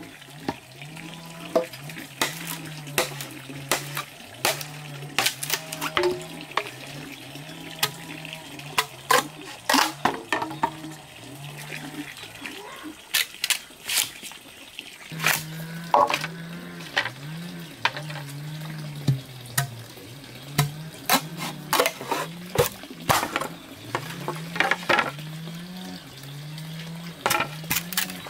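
Bamboo being split with a machete: a series of irregular sharp knocks and cracks as the blade is driven into and through the pole. A low hum that pulses about once a second runs underneath.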